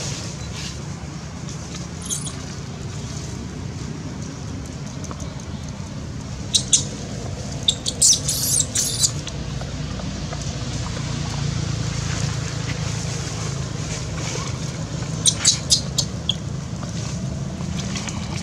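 Steady low hum with short, high-pitched squeaks in a few quick clusters, the longest run about eight to nine seconds in.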